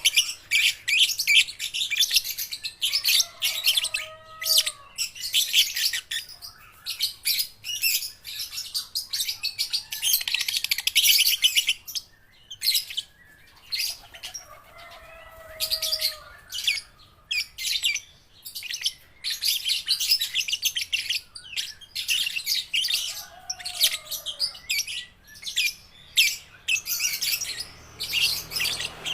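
Young lovebirds chattering in fast, high-pitched chirps that come in runs broken by short pauses. A lower, gliding call sounds three times among them.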